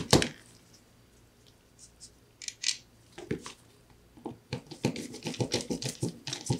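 Small screws being driven with a screwdriver into the plastic cover of a Sonoff Basic switch, with handling of the plastic case: a sharp knock at the start, then a few scattered clicks, and from about four seconds in a quick run of small clicks and scrapes as the screw turns.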